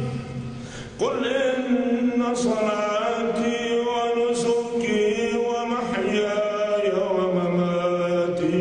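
An elderly imam's voice reciting the Quran in a slow melodic chant, drawing out long held notes that glide between pitches; a new phrase begins about a second in.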